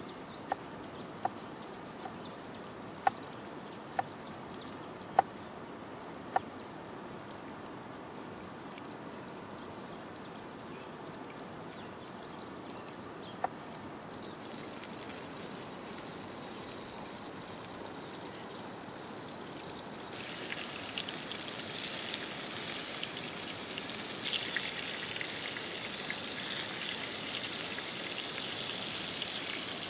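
A knife chopping a pickled cucumber on a wooden cutting board: six sharp chops in the first six seconds and one more about 13 seconds in. A hiss of frying rises from about 14 seconds in and turns to a loud, crackly sizzle at about 20 seconds: beef burger patties frying in a hot pan.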